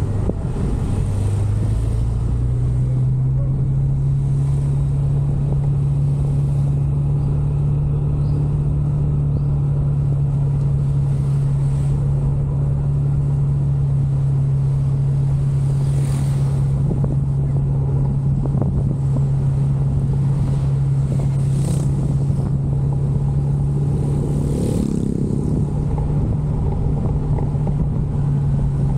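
Motorcycle engine running at a steady cruising speed, heard from the bike itself. Its note dips briefly around the start, then holds an even drone.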